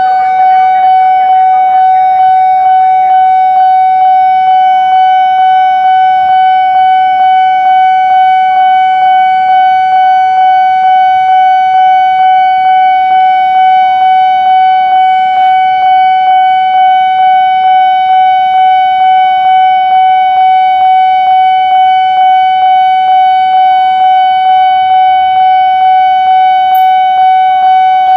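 Railway level-crossing warning bell ringing continuously: an electronic tone pulsing about twice a second, the sign that the crossing barriers are down for approaching trains.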